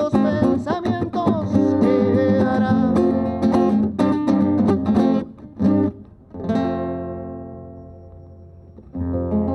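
Acoustic guitar strummed in a quick rhythm, amplified through a PA speaker, closing out a song. About six and a half seconds in, a last chord is left to ring and fade, and another chord is struck near the end.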